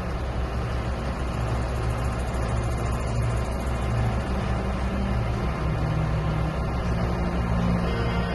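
John Deere 9500 combine harvester running steadily, its diesel engine and machinery making a constant low drone.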